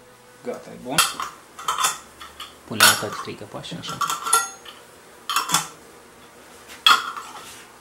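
Glass honey jars and gold metal screw lids clinking as filled jars are set down and capped, about six sharp clinks.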